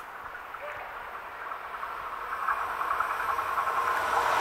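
Deutsche Bahn ICE high-speed electric train approaching on the line, its rushing noise from wheels on rail and air building steadily louder over the last couple of seconds.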